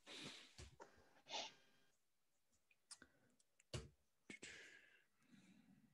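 Near silence, broken by a few faint clicks and soft breathy noises.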